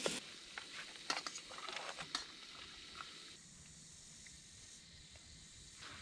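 Prawns frying in garlic butter in a pan: a faint sizzle with a few light clicks, which drops away a little past halfway, leaving a quieter steady hiss.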